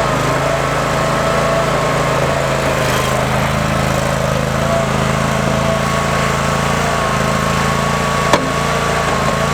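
Toro Dingo 222 compact loader's engine running steadily, with a steady whine over the engine note. There is a single sharp knock about eight seconds in.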